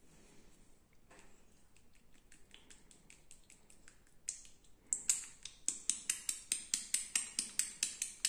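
Sharp snapping clicks from a masseur's fingers working the skin of a man's bare chest in a hand massage. They start faint and sparse, then about five seconds in turn into a loud, even run of about four a second.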